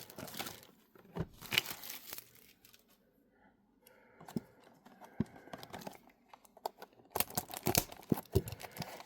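Plastic shrink wrap being torn and crinkled off trading card boxes, in rustling bursts at the start and again near the end, with a quieter stretch of a few light clicks in between.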